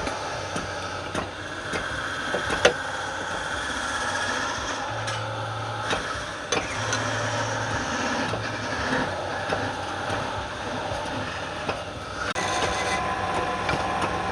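Wood lathe running steadily, with scattered sharp clicks and knocks, one louder knock a little over two seconds in.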